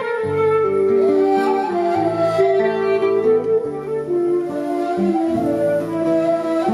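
Instrumental music: a melody of held, flute-like notes over a bass line that steps from note to note.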